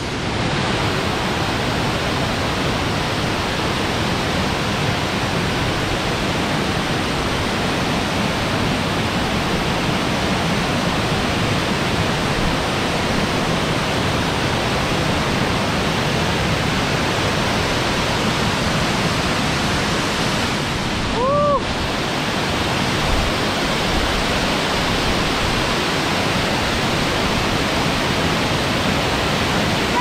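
Steady rush of a large waterfall in heavy flow, water pouring over rocks. About three-quarters of the way through, a short tone rises and falls once.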